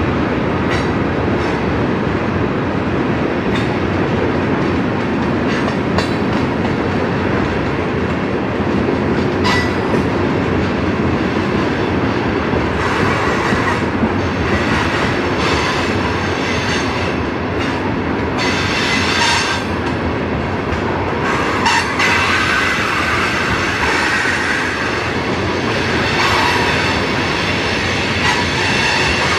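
Loaded coal hopper cars rolling past on a curve as the train climbs the grade: a steady rumble of steel wheels on rail, with sharp clicks at the rail joints. From about halfway through, high wheel-flange squeal comes and goes as the wheels grind through the curve.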